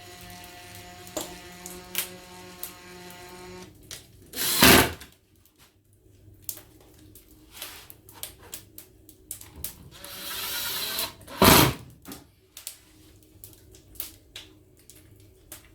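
A power tool's motor runs steadily for about four seconds and then stops. Two short, loud rushing bursts follow, several seconds apart, amid scattered clicks and knocks of parts being handled.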